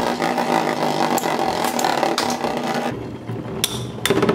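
Two Infinity Nado 3 battle tops spinning and scraping around a plastic arena, a steady whirring grind peppered with small clicks. About three seconds in the grinding drops away, leaving scattered sharp knocks as the tops strike each other.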